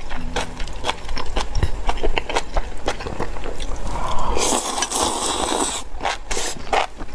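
Close-miked mouth sounds of someone eating spicy enoki mushrooms: a run of quick wet clicks and smacks from chewing, with a louder noisy stretch of under two seconds about four seconds in.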